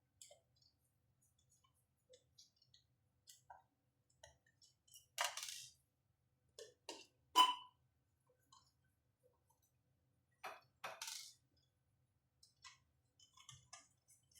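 Scattered light metallic clicks and clinks of a screwdriver and small screws as a circuit board is unscrewed. The loudest clinks come about five, seven and eleven seconds in, one of them ringing briefly.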